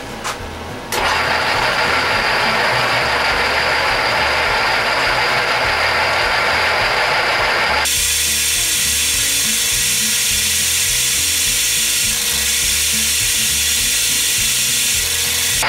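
A drill press motor switches on about a second in and runs steadily. From about eight seconds the bit cuts into the metal bracket held in the vise, and the sound turns higher and hissier with a steady hum under it.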